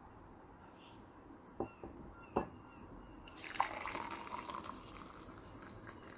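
A few light clicks, then hot chocolate poured in a stream into a glass mug from about three seconds in, the pouring gradually easing off as the mug fills.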